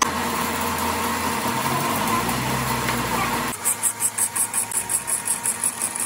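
Metal lathe running with a steady machine hum. About three and a half seconds in the sound changes to a rhythmic pulsing, about six beats a second, with a high hiss, as the hydraulic cylinder coupling plate spins against the turning tool.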